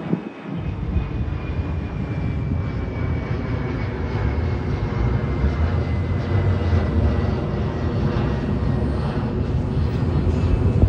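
Kawasaki R211A subway train running on the track: a heavy rumble sets in suddenly about half a second in and grows steadily louder, with a thin high whine slowly falling in pitch over it.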